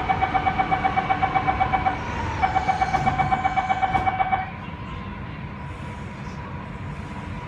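Metro train door-closing warning beeper: rapid beeps, about six a second, warning that the doors are closing. They pause briefly about two seconds in, resume, and stop about four and a half seconds in, leaving the steady hum of the train.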